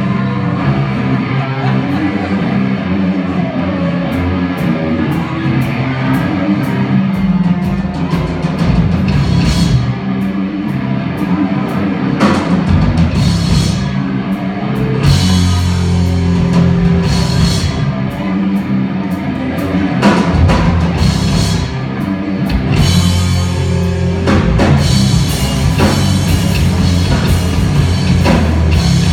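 A live rock band playing loud: electric guitar and drum kit, with cymbal crashes landing every second or two.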